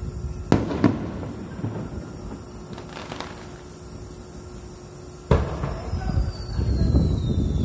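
Aerial firework shells bursting at close range. Two sharp bangs come about half a second apart near the start, a couple of faint pops follow around three seconds, and a loud bang about five seconds in is followed by a rolling rumble.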